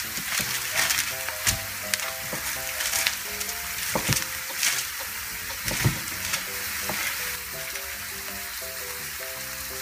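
Onions sizzling in a frying pan, with a kitchen knife knocking several times on a wooden cutting board as raw chicken breast is cut into chunks. A soft melody of short notes plays underneath.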